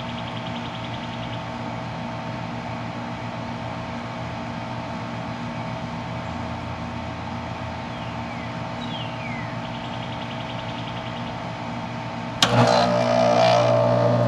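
A steady hum, then about twelve seconds in a sharp click as the central air conditioner's outdoor unit kicks on and runs louder with a strong low hum. This is the compressor and condenser fan starting after the thermostat's delay, now that the failed control board has been replaced.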